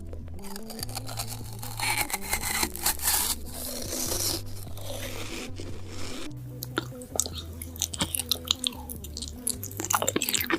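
Close-miked mouth eating: crunching and chewing, with a run of sharp crunching clicks in the last few seconds, over background music with a low bass line.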